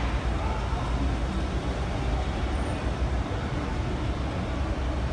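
A down escalator running: a steady low hum and rumble from its drive and moving steps, mixed with subway station background noise.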